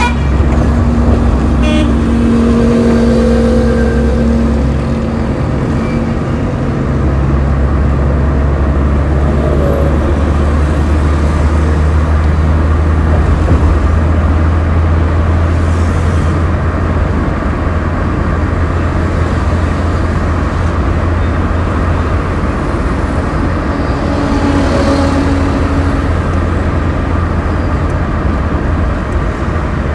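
Steady low rumble of motor traffic on a city road, with a car horn sounding near the start and again near the end.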